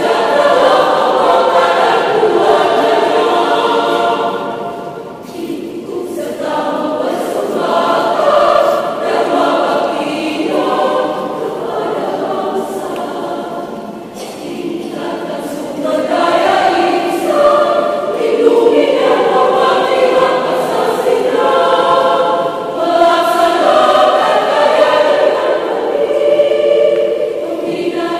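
Women's choir singing in several parts, with softer passages about five seconds in and again near the middle, then fuller and louder through the second half.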